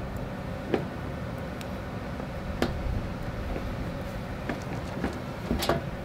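Screwdriver working the screws on a metal RV water-heater access panel: a few sharp clicks over a steady low rumble.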